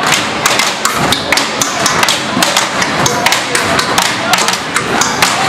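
Marching band drumline beating out a cadence of sharp, rapid stick strikes, with bass drum thuds among them.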